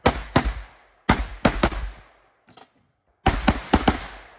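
Gunshots fired in quick strings: a pair, then three, then four, with short pauses between strings and a faint single crack in the middle pause.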